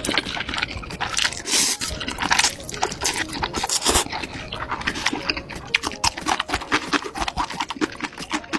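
Slurping of instant noodles, then slurping sauce from a bowl, with wet chewing in between: a dense run of irregular wet smacks and sucking noises.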